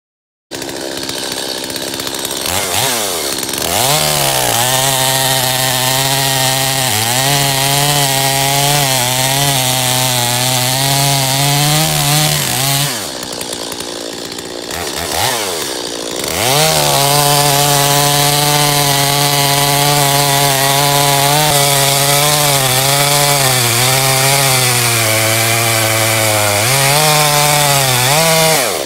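Small Stihl two-stroke chainsaw at full throttle, cutting firewood rounds, its pitch sagging and wavering under load. About halfway through it drops off the throttle for a couple of seconds, then revs up and cuts again.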